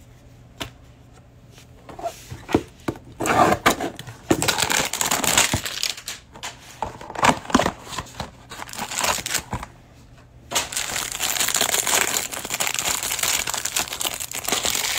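Plastic wrapping of a trading-card hanger box crinkling and tearing as the box is opened and the cards unwrapped: a few light clicks, then bursts of rustling, and a longer unbroken crinkle from about two-thirds of the way in.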